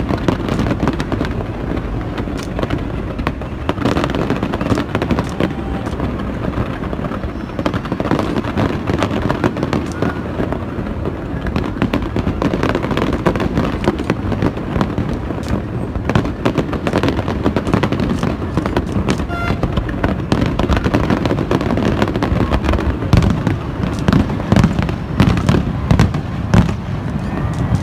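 Fireworks display: aerial shells bursting in a dense, continuous run of bangs and crackles, heaviest near the end.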